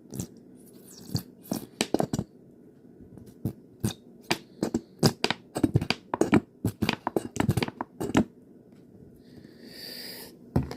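Hands at work putting a taco together: irregular clicks, taps and crinkling of packaging and utensils, then a short hiss about ten seconds in.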